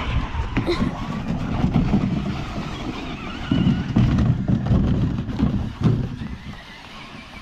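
A large electric RC truck drives over rough ground, its motor whine rising and falling above a rumble of tyres and knocks.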